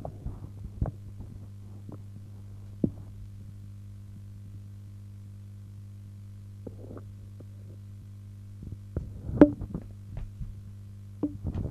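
Steady low electrical hum under a few sharp clicks and knocks from handling the homemade vidicon camera on its board, with a busier cluster of knocks near the end, the loudest as it is lowered.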